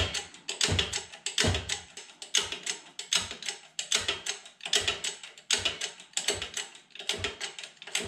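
Hand-pumped bottle jack of a hydraulic shop press being worked stroke after stroke: an even metallic clack with a short ring on each stroke, a little more than one a second. The jack is building pressure to push a stuck shaft, held by a Woodruff key, out of its gear.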